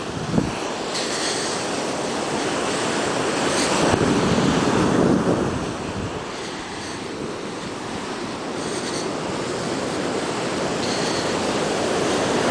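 Atlantic Ocean surf breaking and washing up the beach: a steady rush that swells loudest about four to five seconds in, eases, then builds again near the end.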